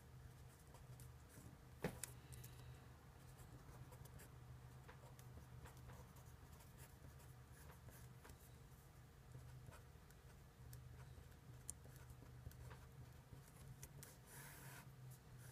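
Faint scratching and tapping of a felt-tip marker writing on paper, with a sharper tap about two seconds in and a brief rubbing stroke near the end, over a low steady hum.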